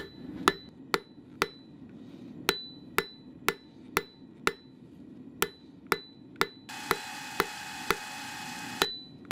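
Hand hammer striking a hot steel bar on an anvil, about two blows a second with a couple of short pauses, each blow giving a brief high ring: the bar is being drawn out into a taper. A steady hiss runs for about two seconds near the end.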